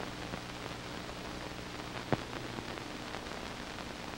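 Hiss and crackle of an old 1940s film soundtrack in a pause of the narration, with a faint steady hum and scattered clicks, one sharper click about halfway through.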